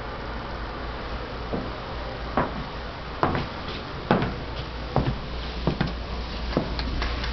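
A series of irregular knocks and clicks, about eight, spaced half a second to a second apart, from handling and movement while someone carries a camcorder through a room. A steady low hum runs underneath.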